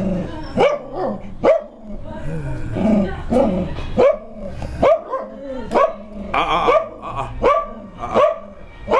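A dog barking repeatedly, short sharp barks about one a second.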